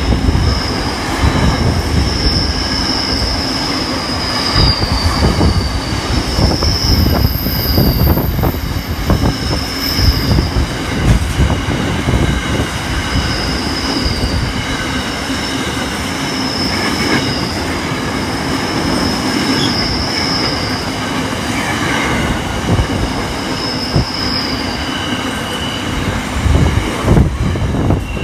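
Freight train wagons rolling past close by: a steady rumble with the steel wheels clattering over the rail joints, and a high-pitched wheel squeal that comes and goes every few seconds.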